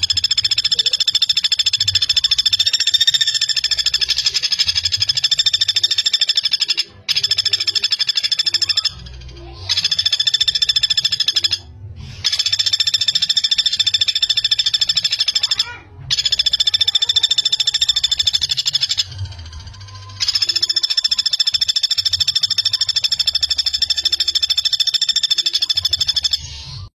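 Common flameback woodpecker (pelatuk bawang) giving long, rapid trilling rattles in six bouts of about two to seven seconds each, with short breaks between them.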